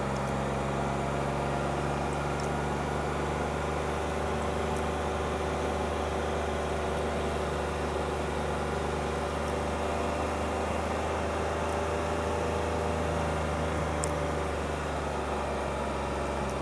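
Car engine running at a steady low speed, a continuous even hum with a low rumble, heard from inside the car.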